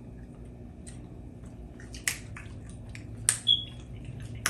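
Peanuts being shelled and eaten: a scatter of small wet clicks and squishes, with three sharper cracks about two, three and four seconds in.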